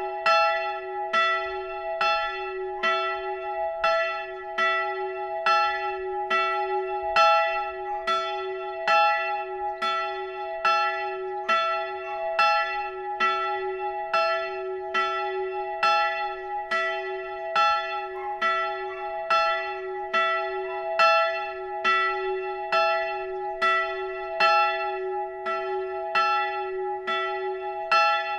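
A single swinging church bell tolling with an even, steady stroke, between one and two strikes a second, its hum tone ringing on between strokes. This is the Vorläuten, one bell rung half an hour before a Lutheran service.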